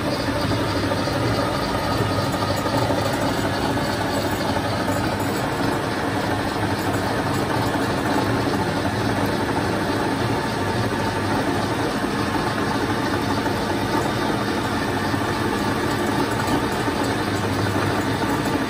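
Metal lathe running steadily, turning a steel bush pin with the cutting tool against the workpiece.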